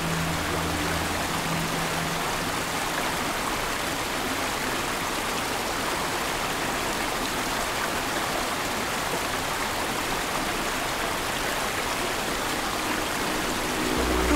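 Shallow rocky river rushing steadily, a constant wash of flowing water. Low sustained music notes fade out about a second in and come back right at the end.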